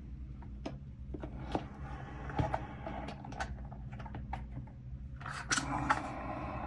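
Small clicks, taps and a brief scrape of plastic model-kit parts and hobby tools being handled on a workbench, over a steady low hum.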